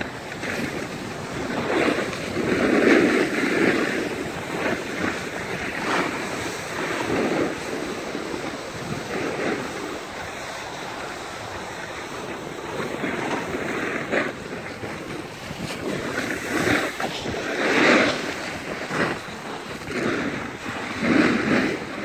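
Skis or a snowboard sliding and scraping over packed snow, the hiss swelling and fading every few seconds with the turns, mixed with wind rushing over the microphone.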